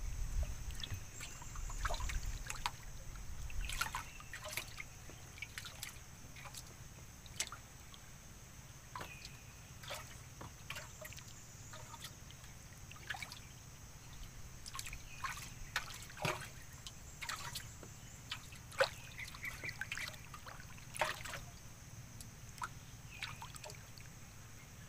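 River water trickling and dripping with small splashes and ticks as a wooden paddle and the fisherman's feet move in the water beside the boat. A low rumble in the first few seconds.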